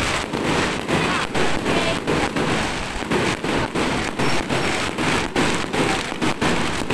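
Aerial fireworks bursting overhead: a dense, unbroken run of irregular pops and crackles.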